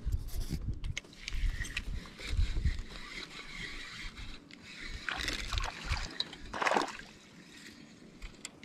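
Water sloshing and knocking around a small fishing boat, with two short splashy bursts about five and nearly seven seconds in.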